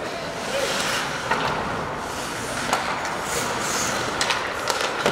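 Ice hockey play on an arena rink: skate blades scraping the ice under a steady hiss, with several sharp clacks of sticks hitting the puck or the boards.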